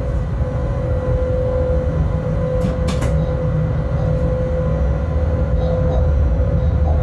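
Cab of a Bombardier Traxx class 186 electric locomotive running along the line: a steady low rumble of the train on the track with a constant whine over it. A few sharp clicks come close together about three seconds in.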